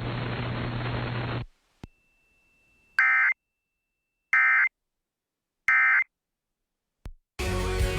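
Emergency Alert System end-of-message signal: three short bursts of warbling data tones (the "NNNN" code) about 1.3 seconds apart. Before them, a steady hiss with a low hum cuts off with a click. Music starts near the end.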